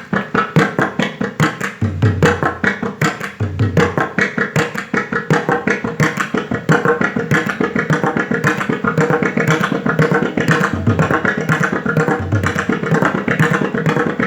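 Pakhawaj drum played in a continuous run of rapid strokes imitating a train pulling out of a station, the strokes growing denser after about six seconds. A few deep bass strokes from the drum's left head sound through it.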